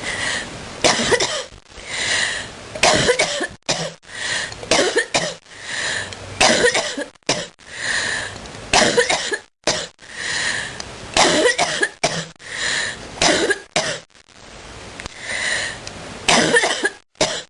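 A person in a long coughing fit: short coughs in quick runs of two or three, repeated over and over with brief pauses.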